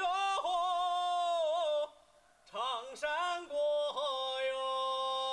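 A man singing solo with no accompaniment: long held notes broken by sudden jumps in pitch. He pauses briefly about two seconds in, then holds another long note.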